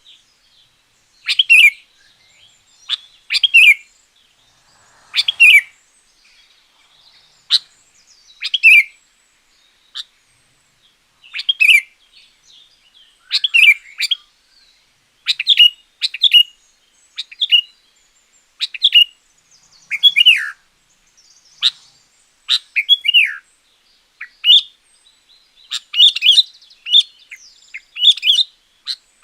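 Sooty-headed bulbul (kutilang) singing: short loud phrases of chirping notes every second or two, with brief pauses between, some notes sliding downward.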